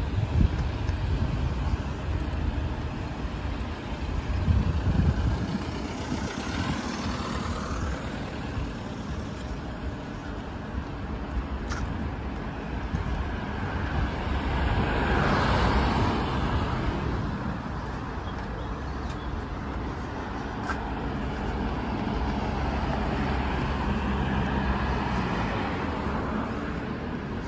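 Road traffic on a street, with cars driving past; one passes loudest about halfway through.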